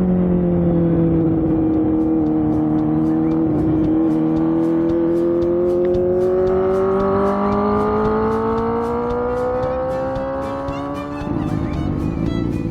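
A 250cc four-cylinder engine in a Honda Gorilla minibike running steadily under way through its renewed silencer, its note dipping slightly, then climbing smoothly as it picks up revs. Near the end the clean note turns rougher and noisier.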